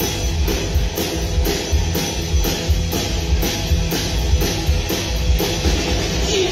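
Live band playing an instrumental intro: upright bass, drum kit and electric guitar on a steady beat with about four drum hits a second.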